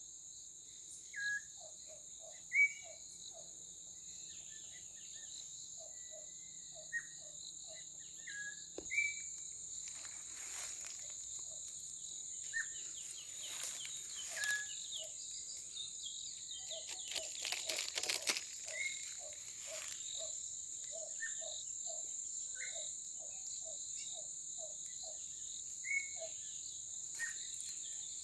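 A steady, high-pitched drone of insects, with birds calling over it in short whistled notes and in runs of low repeated notes, about two a second.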